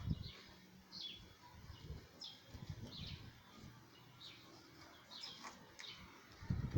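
Faint small birds chirping: short, high, falling chirps repeated irregularly.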